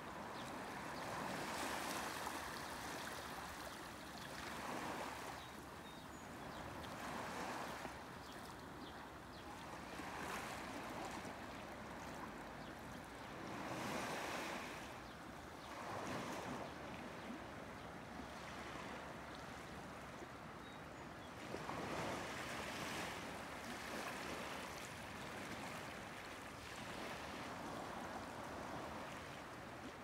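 Gentle sea waves washing in and lapping against a rocky shore, the surf swelling and easing every few seconds.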